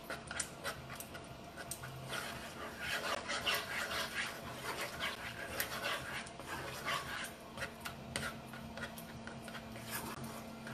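A spatula stirring a thick, creamy canned-soup mixture in a nonstick skillet, making wet scraping and squishing strokes in an uneven rhythm.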